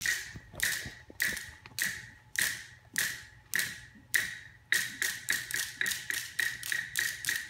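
A wood block struck with a beater, playing a steady beat alone: about one short, ringing knock every 0.6 seconds, then doubling to roughly three knocks a second a little over halfway through.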